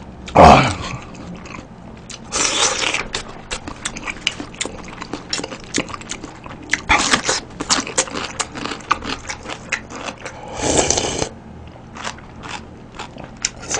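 Close-miked eating: several loud slurps of soup and noodles, with crunchy chewing clicks in between.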